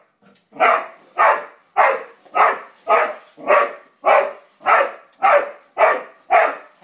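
A dog barking repeatedly at a toy car: eleven sharp barks in a steady run, about two a second.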